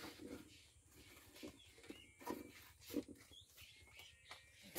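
Near silence: faint outdoor background with a few soft knocks and faint high chirps.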